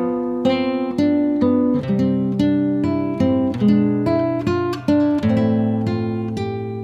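Background music of acoustic guitar, plucked chords and notes following one another at a gentle pace, each ringing and fading.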